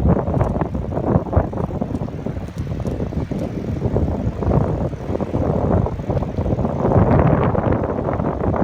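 Wind buffeting the microphone of a camera in motion: a loud, uneven rumble with no clear pitch.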